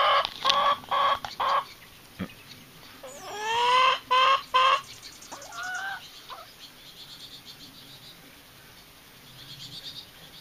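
Chickens calling in a run of loud, drawn-out, pitched squawks. The first is broken into several quick pieces, another rises in pitch about three seconds in, and after about six seconds only fainter calls remain.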